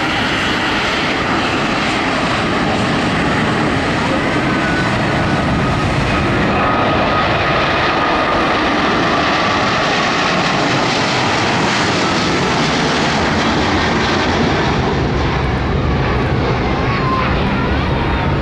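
Swiss Boeing 777-300ER's twin GE90-115B turbofans at takeoff thrust during the takeoff and climb-out: steady, loud jet noise with a faint whine riding on top.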